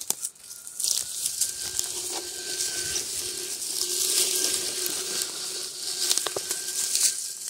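Radio-controlled scale crawler truck driving over dry pine needles, twigs and dirt: crackling and crunching from the forest floor with scattered sharp snaps, over a faint steady electric-motor whine.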